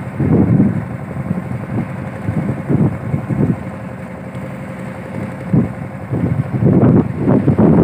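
Fishing boat's engine running steadily while under way, with gusts of wind buffeting the microphone in uneven surges.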